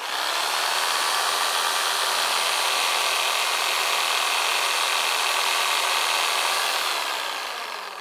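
Reciprocating saw running and cutting through white PVC pipe, a steady buzzing saw noise; near the end the motor winds down, its pitch falling.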